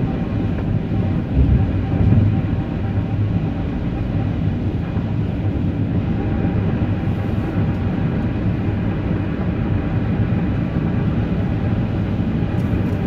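Steady low rumble of a moving vehicle, with a low engine or drivetrain drone underneath.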